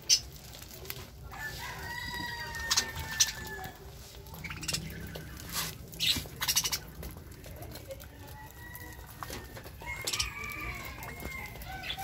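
Caged budgerigars calling and fluttering: scattered sharp chirps, with a long drawn-out call about a second in and another near the end.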